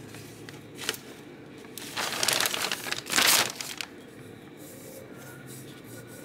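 Plastic packing sheet crinkling and rustling, loudest in two spells between about two and three and a half seconds in, over a faint low steady hum.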